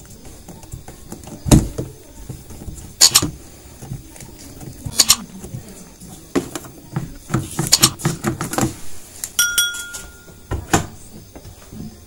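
Hard plastic clicks and knocks, with rubbing in between, as the drain valve cap of a Sharp washing machine is fitted and screwed tight by hand over its new rubber seal; the sharpest clicks come about one and a half and three seconds in. A short steady beep sounds for about a second near the end.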